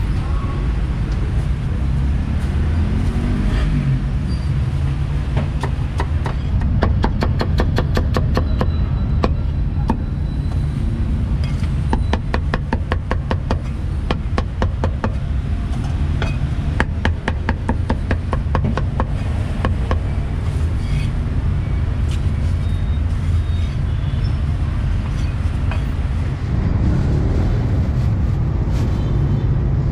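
Meat cleaver chopping roast meat and offal on a thick wooden chopping block, in quick even runs of several strokes a second, three runs between about 7 and 20 seconds in. Steady street traffic rumbles underneath.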